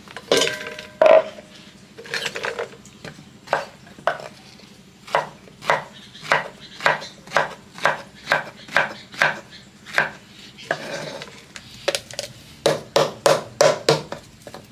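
Kitchen knife chopping luffa gourd on a wooden chopping board: steady knocks of the blade on the board, about two a second, then a quicker run of chops near the end.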